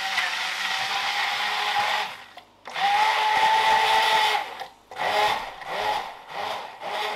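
Hand-held immersion blender puréeing canned tomatoes in a plastic beaker, its motor whining steadily. It runs for about two seconds, stops briefly, runs again for about two seconds, then is pulsed on and off in several short bursts.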